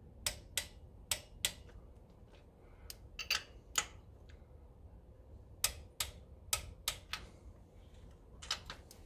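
Click-type torque wrench on intake manifold bolts, giving about fifteen sharp metallic clicks in small groups as the bolts are brought up to torque in rounds.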